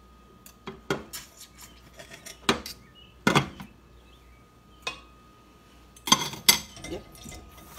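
Cutlery clinking and knocking on a ceramic plate while a habanero pepper is cut in half: a string of irregular sharp clinks, the loudest a little after three seconds and again around six seconds in.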